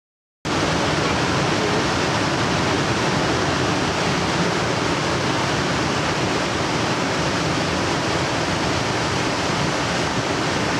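Steady rush of a waterfall pouring into a pool, cutting in suddenly just under half a second in.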